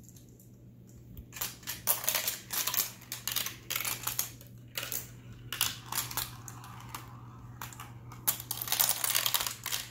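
Glass marbles running down a plastic marble run, clicking and rattling through its tubes, funnels and spinners in an irregular clatter that starts about a second in.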